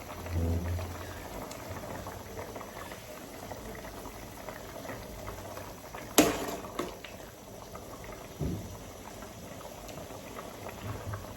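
Pot of soup bubbling steadily on the boil, with a sharp metallic clink about six seconds in and a dull knock a couple of seconds later.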